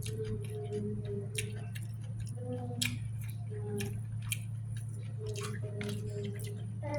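Close-up eating sounds: scattered sharp clicks and crunches of chewing fried chicken with rice, over a steady low hum and faint background music.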